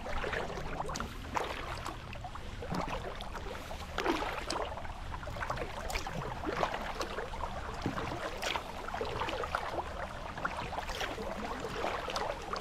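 Kayak paddle strokes: the blades dipping and pulling through calm water, with drips and small splashes coming at irregular intervals over a low steady rumble.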